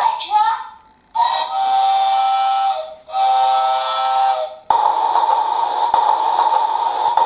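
Electronic sound effects from a push-button Thomas the Tank Engine toy: two long whistle toots, each held steady for about a second and a half. From about five seconds in comes a steady rushing noise like escaping steam.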